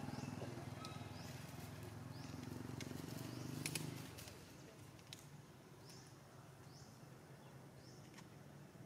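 Faint outdoor ambience: short high chirps repeating about once a second, a few sharp clicks like rustling dry leaves, and a low hum that fades out about four seconds in.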